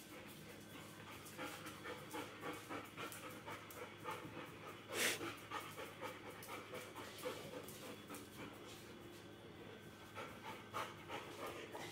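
Golden retrievers panting, with many quick irregular clicks of claws on a tile floor and one brief, louder noisy sound about five seconds in.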